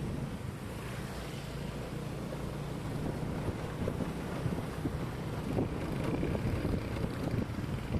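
Steady road noise while moving along in traffic: a low rumble of vehicle engines and tyres, with wind on the microphone. No horn sounds.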